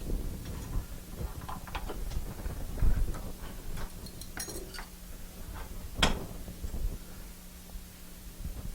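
Metal parts clinking and knocking as a small workpiece is taken out of a lathe collet and handled, with one sharp metallic clank about six seconds in. A faint steady hum runs underneath.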